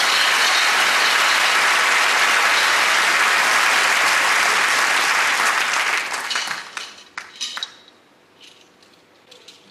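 Theatre audience applauding, a dense steady clapping that thins into scattered claps and dies away from about six to eight seconds in. A few faint small clicks follow near the end.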